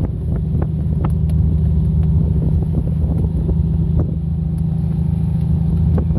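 Fishing boat's engine running steadily on board, a low even drone, with wind on the microphone and a few short knocks.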